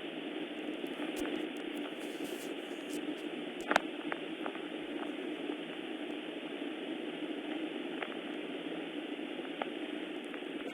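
Steady hiss of rain, with one sharp click a little under four seconds in.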